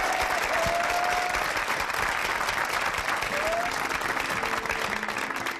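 An audience applauding steadily. Near the end, an acoustic guitar starts playing as the applause begins to fade.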